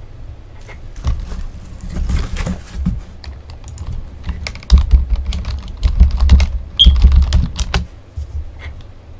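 Typing on a computer keyboard: irregular runs of key clicks, with dull low thuds in two stretches, about a second in and again from the middle to near the end.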